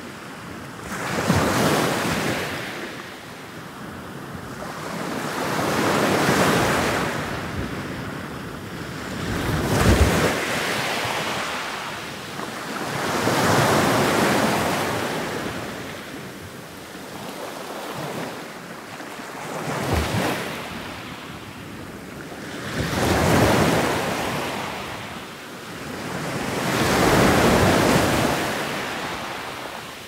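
Ocean waves breaking one after another, each a rush of surf that swells and fades, about every four seconds. A couple of the breakers land with a sharper crash.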